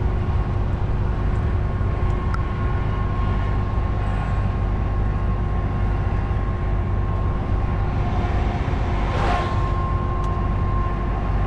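Steady low drone of a DAF truck's diesel engine and tyres heard inside the cab while driving, with two steady tones running through it. About nine seconds in there is a brief swell of hiss.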